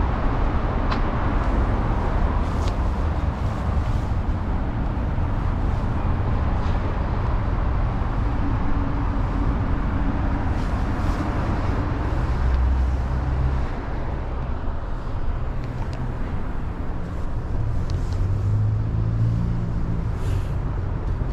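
Steady rumble of road traffic and street noise, swelling and fading a little, with a few faint clicks.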